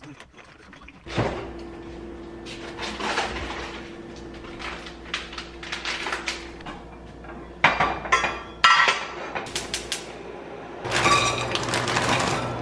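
Kitchen handling sounds: rustling, then a few sharp clinks of cookware about eight to ten seconds in. Near the end comes a dense rattle as frozen pasta and vegetables tumble from a bag into a nonstick saucepan.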